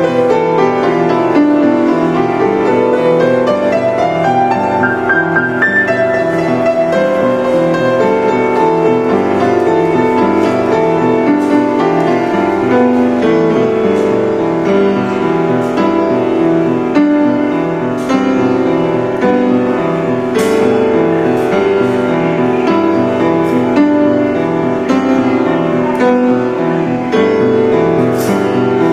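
Upright piano played continuously, a dense flow of chords and melody, with a run of notes climbing upward over the first few seconds.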